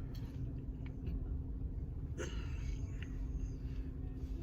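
A low steady rumble with a constant hum underneath, and a brief faint sound about two seconds in.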